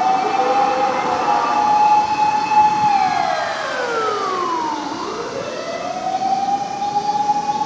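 Fire-rescue truck's motor siren: held at a steady high pitch, then winding down for about two seconds about three seconds in, and winding back up to full pitch.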